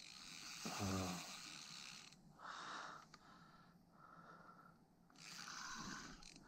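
A man breathing heavily close to the microphone: two long, faint breaths about three seconds apart, with a brief low hum about a second in.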